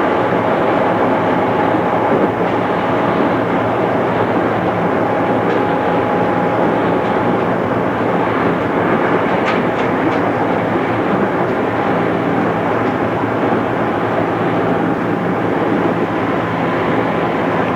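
JR East 211 series electric train running at a steady speed, heard from inside the car: an even rumble of wheels on rail with a steady hum from the internal-fan traction motors, dull-toned from the cassette tape recording. A few faint clicks come about halfway through.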